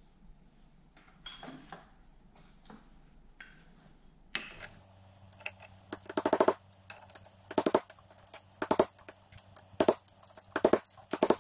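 Hammer striking a steel punch to drive a tight spline-fit gear and synchronizer assembly down the shaft of a Toyota W52 manual transmission: sharp metallic strikes that ring. A few light taps come first, then from about four and a half seconds in a quick run of blows, two to three a second.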